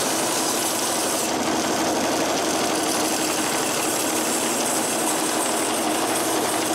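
Power saw cutting a traced circle out of a cherry wood blank: a steady machine sound with a fast, even pulse.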